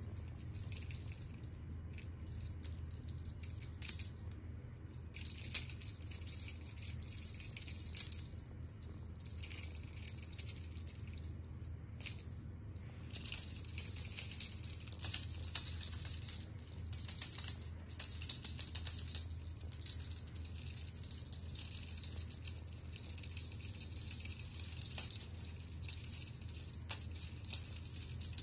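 Feather wand cat toy jingling almost continuously as it is waved and batted, with short breaks about four and twelve seconds in.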